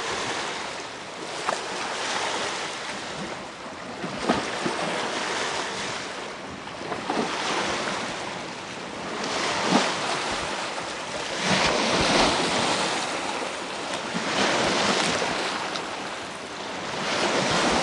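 Lake waves washing on the shore, a steady hiss that swells and fades every couple of seconds.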